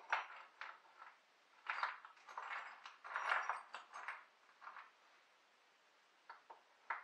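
Metal parts being handled at a workbench vise: irregular clinks and knocks with a few short scrapes, and two sharp clicks near the end.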